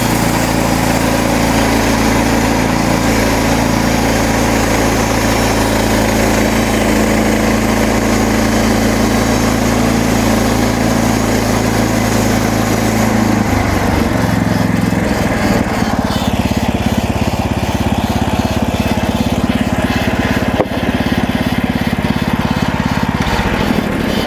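A MechMaxx SM32 bandsaw mill's gas engine running steadily under throttle while the band blade cuts through a cedar log. Its note shifts about halfway through.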